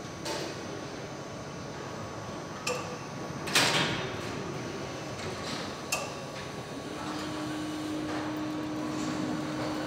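Factory assembly-line noise: a steady background of machinery sound broken by a few sharp clicks or knocks. The loudest event is a short hissing burst about three and a half seconds in, and a steady hum sets in about seven seconds in.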